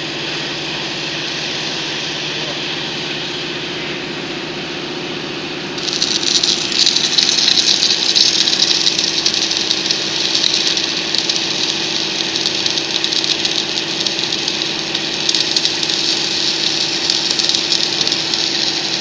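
Welding equipment humming steadily, then about six seconds in the welding arc of a small submerged-arc welding head strikes and crackles, louder, with a dense hiss, over the hum.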